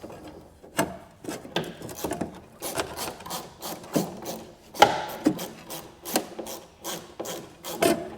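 A hand tool scraping in a run of quick, irregular strokes, about one or two a second, with the loudest stroke just before the five-second mark.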